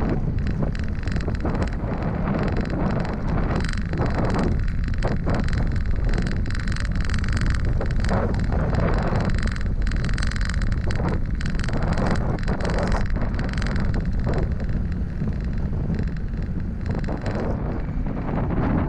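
Wind buffeting the microphone of a bike-mounted camera as the bicycle rolls along asphalt, with a steady low rumble and many scattered knocks and rattles over bumps and cracks in the road.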